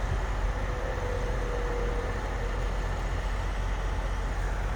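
Inside a moving truck's cab: a steady low engine drone with road and wind noise.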